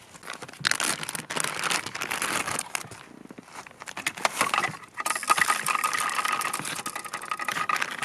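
Crinkling, rustling handling noise with many small clicks, like plastic being crumpled and torn. About five seconds in the texture changes and a faint steady tone runs underneath.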